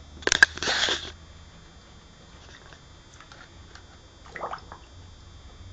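Scottish terrier blowing bubbles into water: a loud bubbling burst with crackles in the first second, faint crackles after it, and a shorter bubbling burst about four and a half seconds in.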